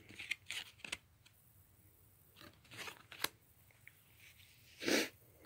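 Baseball trading cards being handled and moved one by one: scattered light clicks and card-stock rustles, with one louder rustle near the end.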